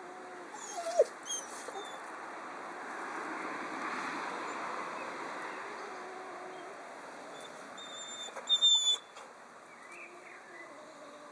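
Dog whining softly on and off, with one short, louder cry about a second in. A cluster of brief, sharp, high sounds comes near the end.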